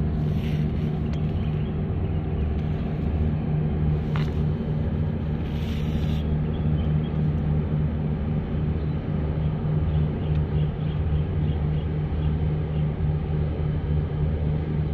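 Steady low engine drone of a passing bitumen tanker, a constant deep hum with no change in pitch.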